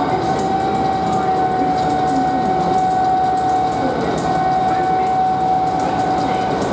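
Class 59 diesel locomotive's EMD two-stroke V16 engine working hard under load as it hauls a heavy aggregate train, with a steady high turbocharger whine over a fast, even engine beat.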